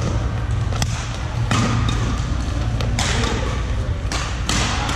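Badminton racquets striking the shuttlecock in a doubles rally, a sharp crack about once a second, echoing in a large sports hall over a steady low hum.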